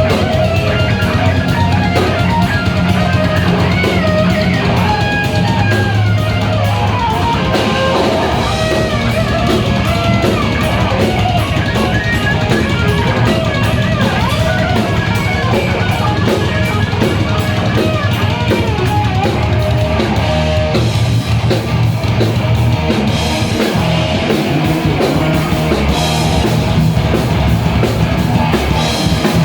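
Rock band playing live: guitar and drum kit over strong, sustained bass notes, with a lead line bending up and down in pitch.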